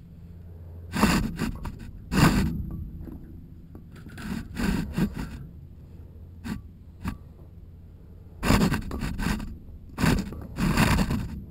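A series of irregular scrapes and rubs as a well inspection camera and its cable are worked down a well casing, the camera brushing the drop pipe and pump wires.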